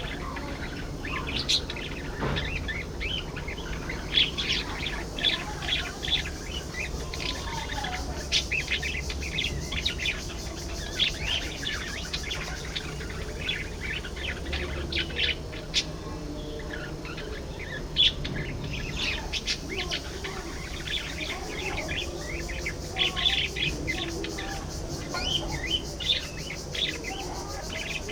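A flock of budgerigars chirping and chattering without a break, many short, high calls overlapping.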